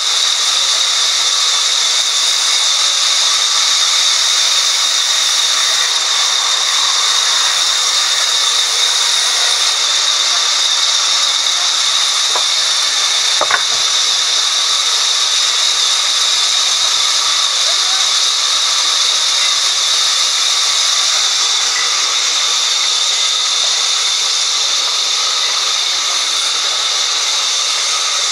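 Sawmill band saw running and ripping a slab of red hardwood: a steady loud hiss with an even high whine, and one small knock about halfway through.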